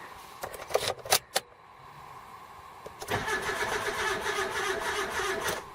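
A few sharp clicks, then a rebuilt car starter motor cranking the engine steadily for about two and a half seconds. With the distributor disconnected, the engine turns over without firing.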